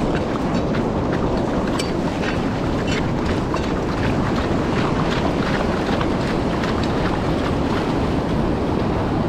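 Ocean surf washing in close at the waterline, a steady rushing wash with many small crackles, with wind buffeting the microphone.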